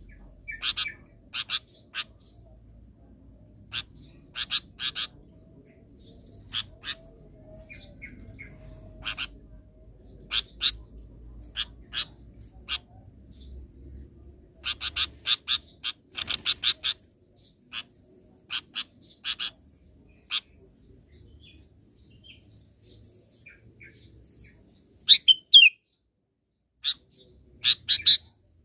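Sooty-headed bulbul calling: a string of short, sharp chirps, some in quick clusters, with a few louder notes bending in pitch near the end.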